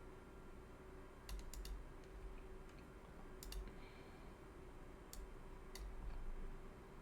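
Clicking at a computer: several sharp clicks in three small clusters, about a second in, in the middle and near the end, over a faint steady hum.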